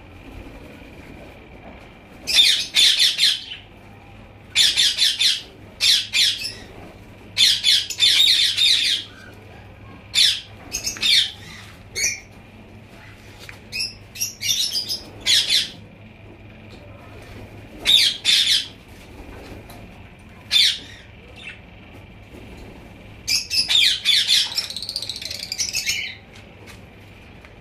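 Caged small parrots squawking in repeated harsh bursts, clusters of shrill calls every second or two, over a faint steady high tone.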